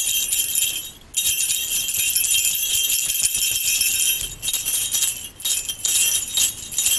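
Sleigh bells jingling in continuous shaking, with a brief break about a second in and more uneven, choppy shaking from about four seconds on.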